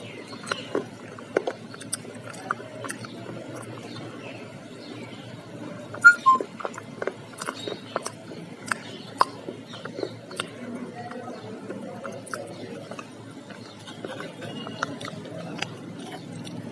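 Close-up chewing of crunchy fried samosa: irregular crunches and mouth clicks, with one louder bite about six seconds in.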